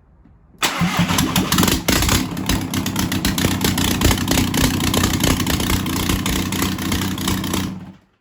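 Seat Arosa's 1.9 TDI PD diesel engine, running with no turbo fitted, starts about half a second in and runs really loud and steady for about seven seconds, then is shut off and stops abruptly near the end.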